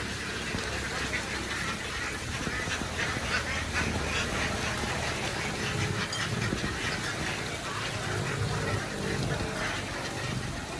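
A large flock of domestic ducks quacking continuously, many calls overlapping into a dense chatter.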